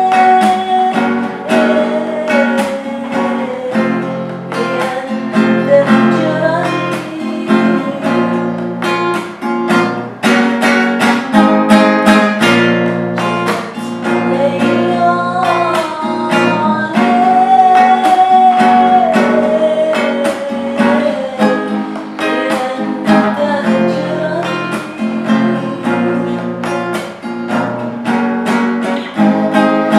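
A woman singing a slow Arabic song over a steadily strummed acoustic guitar.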